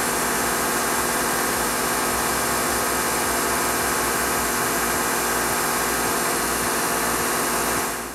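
Newman Whitney S-290-BF 36-inch planer, with its helical cutterhead and belt feed, running empty: a loud, steady machine whir that cuts off just before the end.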